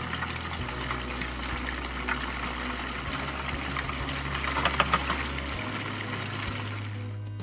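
Tofu pieces deep-frying in hot oil in an electric deep fryer: a steady sizzle and bubbling crackle. About four to five seconds in, a louder cluster of crackles comes as another piece is dropped into the oil.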